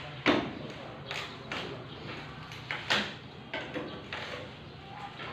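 Scrapes and knocks of a metal hand tool worked against a steel window grill and frame, irregular, with the sharpest knocks about a quarter-second in and near three seconds in.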